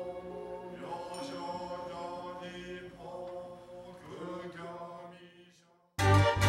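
Buddhist chanting, voices holding long steady notes, fading out about five and a half seconds in. Then loud instrumental music starts abruptly just before the end.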